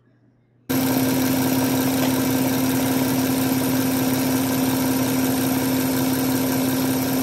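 Electric mixer running steadily, whipping heavy cream with vanilla and powdered sugar into whipped cream. It starts abruptly under a second in and holds a constant whir with one strong steady pitch.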